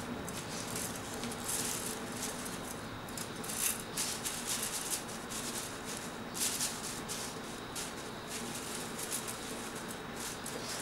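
Thin wooden skewer sticks rattling and clicking against each other as they are laid by hand onto crepe paper, with paper rustling, in short spells of light, high-pitched rustle.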